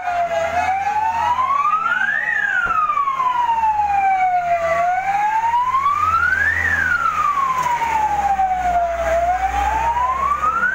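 Fire truck siren wailing close by, sliding slowly up and down in pitch about once every four seconds, with the truck's engine running underneath.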